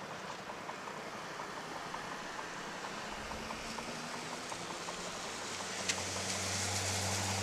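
Scooter engines idling at a stop on a wet road, with a faint ticking about three times a second. About six seconds in, a passing vehicle's engine hum grows louder.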